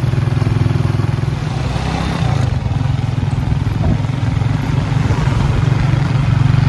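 Motorcycle engine of a Philippine tricycle (motorcycle with passenger sidecar) running steadily under way, heard from inside the sidecar.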